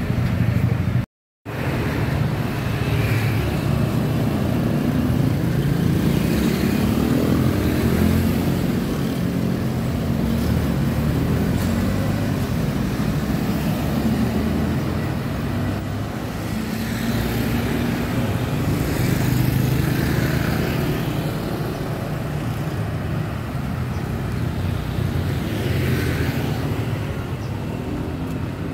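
Road traffic: cars and motorcycles passing under a steady low rumble, with an engine note rising a few seconds in as a vehicle pulls away. The sound cuts out completely for a moment about a second in.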